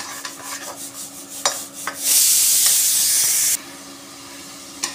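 A metal spatula scraping and stirring thick masala paste as it fries in an aluminium kadhai, with a light sizzle. About two seconds in, a loud steady hiss sounds for about a second and a half, then cuts off suddenly.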